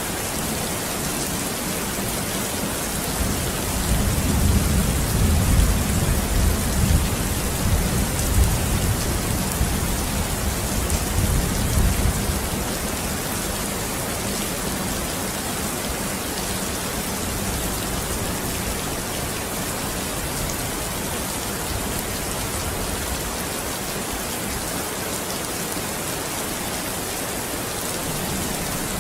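Steady rain with a low rumble of thunder rolling from about four seconds in to about twelve seconds, then steady rain alone.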